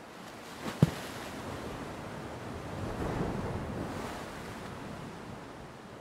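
Ocean surf washing in, with a wave swelling and breaking about three seconds in and then easing off. A short sharp thump near the start is the loudest sound.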